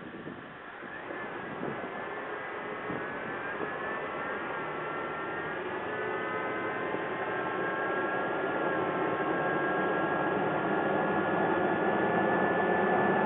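Toyota Tacoma pickup driving, with engine and road noise growing steadily louder as it gathers speed and a high whine that drifts slightly in pitch. No distinct pops stand out.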